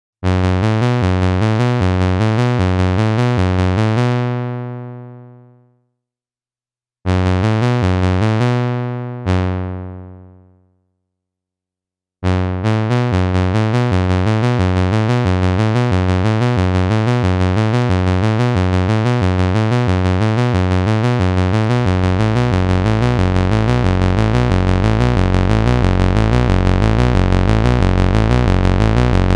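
Roland SH-101 monophonic analog synthesizer playing a fast, repeating bass sequence from its internal sequencer. Twice in the first ten seconds or so the sound darkens from the top down and fades out as the filter closes, then the sequence restarts and runs on steadily, its low end growing heavier about two-thirds of the way through.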